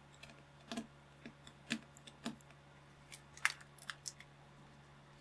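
Irregular small clicks and taps of plastic keyboard parts being handled and fitted, about a dozen over a few seconds, over a faint low hum.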